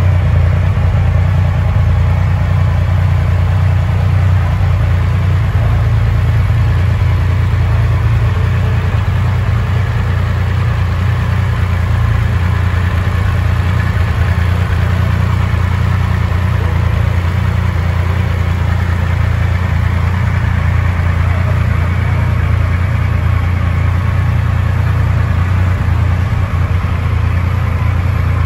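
A 2021 Triumph Rocket III GT's 2458cc water-cooled three-cylinder engine idling steadily.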